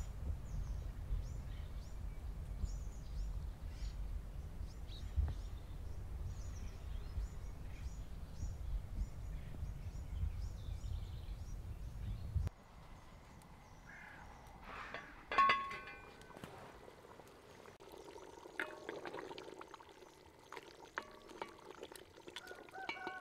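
Low wind rumble on the microphone with short, light scrapes of a knife peeling potatoes. About halfway through the rumble stops, and water splashes in a pot, with a few sharp clinks.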